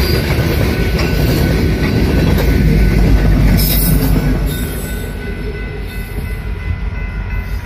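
Loaded coal train of hopper cars rolling past close by, the wheels rumbling and clattering on the rails, with a Union Pacific diesel locomotive going by about four seconds in. Shortly after, the sound drops to a quieter, more distant train, with faint steady tones.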